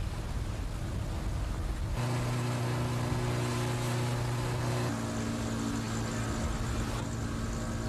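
Rushing wind and water, then from about two seconds in a motorboat engine running with a steady drone, its tone shifting about five seconds in.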